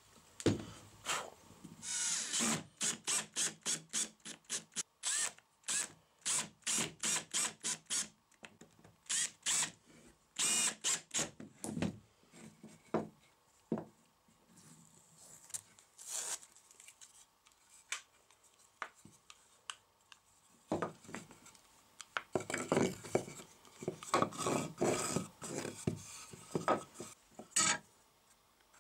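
Hand woodworking on small pine blocks: a run of rhythmic rubbing or scraping strokes, about two a second, then scattered knocks and scrapes, and a pencil scratching along a steel square near the end.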